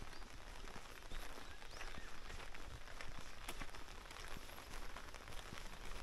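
Steady rain falling, an even hiss dotted with many small drop ticks, with a few faint high chirps now and then.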